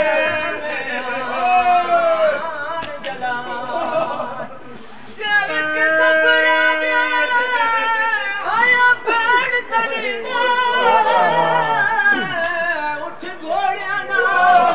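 Male voices singing a matami mourning lament (noha) without instruments, with long, wavering held notes and a short lull about four seconds in.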